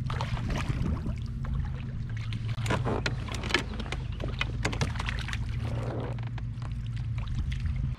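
A hooked fish splashing at the surface beside a boat as it is played toward the net, heard as many short splashes and clicks. Under it runs a steady low hum that cuts off suddenly at the end.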